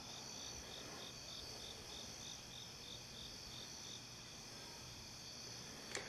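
Faint chorus of night insects: a steady high trill with a soft chirp pulsing about three times a second.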